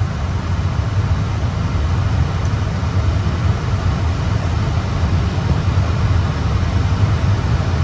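Steady low rumble with a fainter hiss: the ambient noise of a parked Airbus A320's cockpit before engine start.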